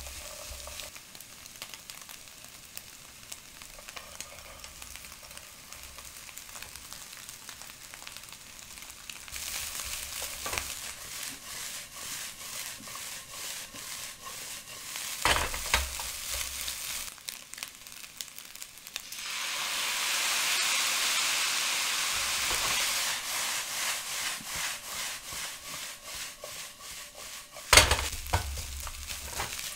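Spam fried rice sizzling in a nonstick wok while a plastic spatula scrapes and tosses it in quick strokes. The sizzle swells louder for a few seconds about two-thirds of the way through, and there are two sharp knocks, one about halfway and a louder one near the end.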